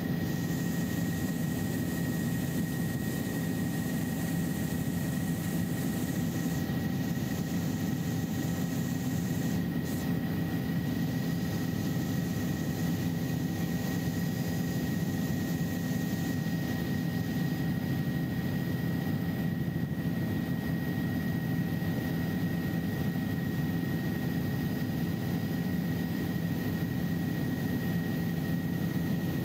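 Helicopter in steady flight heard from inside the cabin: a constant engine and rotor drone with a steady high whine over it.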